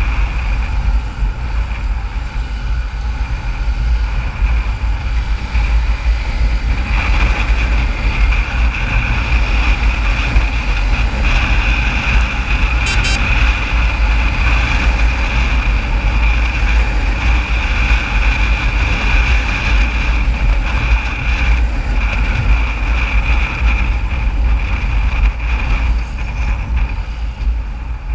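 Motorcycle riding in traffic, heard from the rider's own microphone: heavy wind rumble with the engine and road noise running underneath. A steadier, higher hiss joins about a quarter of the way in and fades near the end.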